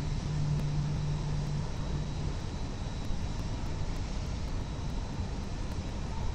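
Steady low rumble of city background noise, with a low hum that fades out about two seconds in and a faint steady high whine.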